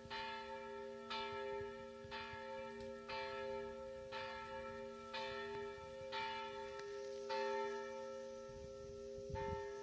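A single church bell tolling, about one strike a second, each strike ringing on into the next.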